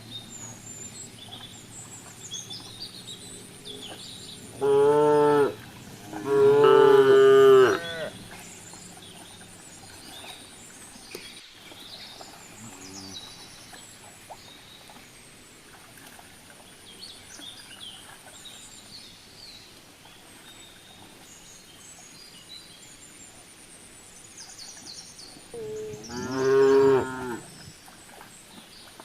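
Cattle mooing: two loud moos close together about five seconds in, a faint short one later, and another loud moo near the end.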